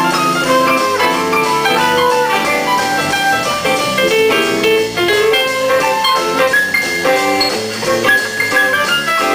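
A live swing band playing an instrumental jazz passage, with trumpet, electric guitar, keyboard and drum kit.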